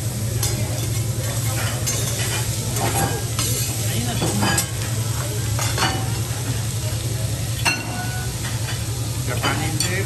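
Food sizzling on a teppanyaki hibachi griddle, with a metal spatula scraping and clicking against the steel plate every second or so and one short ringing clink about three-quarters through, over a steady low hum.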